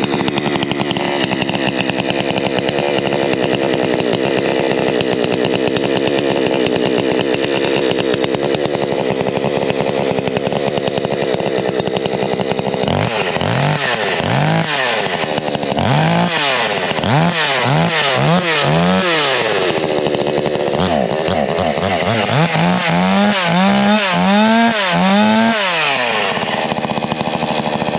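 Coocheer 62cc two-stroke gas chainsaw running steadily at idle. From about halfway it is revved up and down in a string of quick throttle blips, then settles back to idle near the end.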